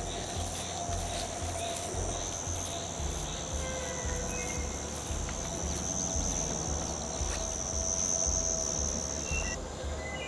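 A chorus of insects trilling in a steady high buzz, the loudest part cutting off shortly before the end, over background music with a steady low beat.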